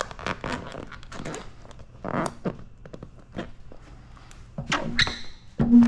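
Wet paint protection film being handled on a car's rear hatch: scattered squeaks, crinkles and light taps as the film is lifted and pressed down with a plastic squeegee, over a faint steady hum, with a brief louder low tone near the end.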